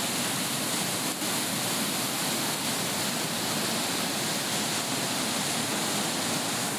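Fast mountain river rushing through whitewater rapids over boulders: a steady, even rush of water.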